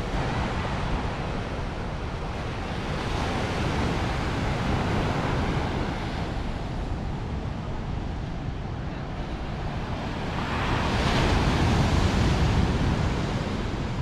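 Ocean surf breaking and washing up on a pebbly black-sand shore, in a steady wash that swells twice, louder the second time about ten seconds in. Wind buffets the microphone, adding a low rumble.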